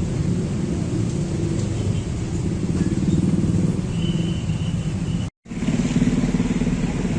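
Steady low rumble of motor-vehicle engines, cut off completely for a fraction of a second about five seconds in.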